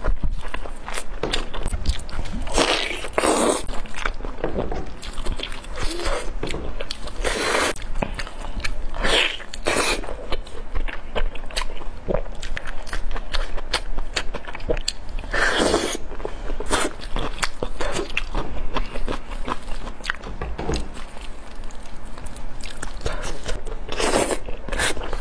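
Close-miked eating of sauce-glazed pork spare ribs: repeated biting, chewing and wet mouth sounds, with louder bites now and then. Gloved hands handle and pull the meat apart.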